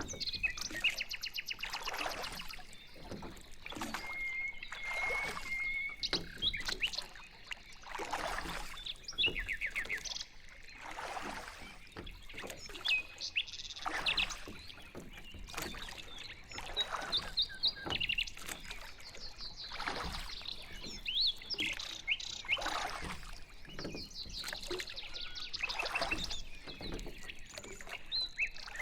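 Paddle strokes swishing and splashing through water about every two seconds, with small birds chirping and trilling throughout, including a steady trill a few seconds in.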